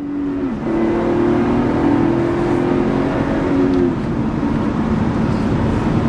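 Lotus Evora S's supercharged 3.5-litre V6, heard from inside the cabin while accelerating. Its note drops about half a second in at a gear change, then holds a strong steady drone and eases off slightly after about four seconds.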